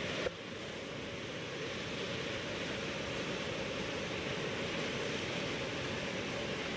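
Steady rushing of a swollen flood river, its fast brown water churning in a continuous roar of noise.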